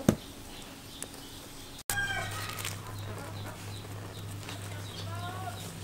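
Charcoal under a wire grill gives a sharp pop near the start. After a sudden break about two seconds in, a chicken clucks in two short bouts over a steady low hum.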